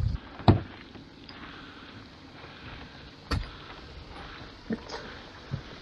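Four short, sharp knocks spread irregularly over a faint steady background noise, the first about half a second in and the loudest.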